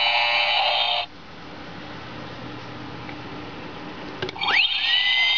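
Robot Chicken electronic action figure playing its electronic sound effects through its small built-in speaker. A buzzing electronic tone cuts off sharply about a second in. Near four seconds in the chest button clicks, and a whine sweeps upward and settles into a steady high electronic whine.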